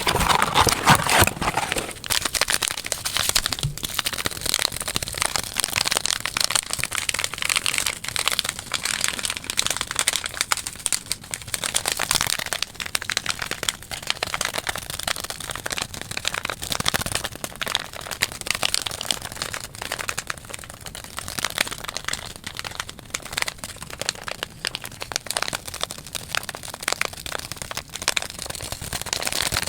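Very fast, irregular ASMR tapping and hand sounds close to the microphone: a dense, unbroken stream of small clicks and crackles.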